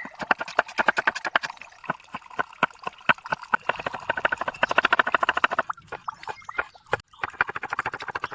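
Rapid knife chopping on a cutting board, several sharp strokes a second, with short pauses about six and seven seconds in.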